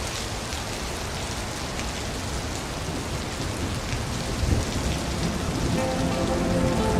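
Steady rain falling, an even patter of drops on water and surfaces. A low thunder rumble swells in the background about two-thirds of the way through.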